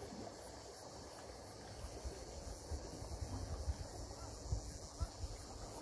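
Faint outdoor ambience: a steady high-pitched hiss with uneven low rumbles of wind on the microphone.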